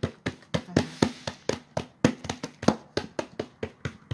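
Hands patting and slapping a thin sheet of msemen dough against a tabletop to spread it out: a quick, even run of short slaps, about four a second.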